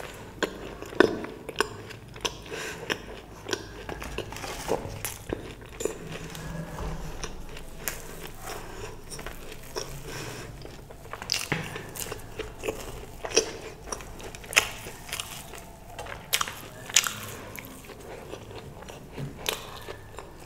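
Close-miked eating: a person biting and chewing crisp food, with sharp crunches at irregular intervals, a second or so apart, over softer steady chewing.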